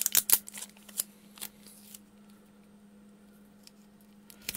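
Paper and sticky tape being handled as a printed sheet is stuck down: a quick run of crisp crackles and taps in the first second and a half. Then it goes quiet apart from a faint steady hum, with a single click near the end.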